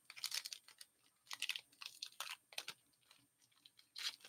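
Foil wrapper of a hockey card pack crinkling in the hands in short, scattered crackles, then tearing open with a louder run of crackles near the end.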